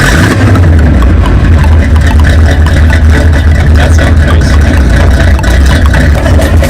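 Car engine running steadily with a deep low rumble.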